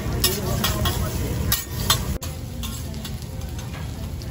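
Metal spatula clinking and scraping on a flat-top hibachi griddle as fried rice is stirred and sizzles, several sharp strikes in quick succession. About two seconds in the clinking stops abruptly, leaving a low steady hum.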